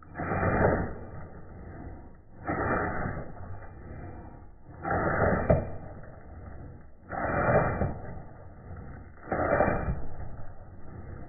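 Chef's knife chopping onion on a wooden cutting board, muffled and dull, coming in bursts about every two and a half seconds.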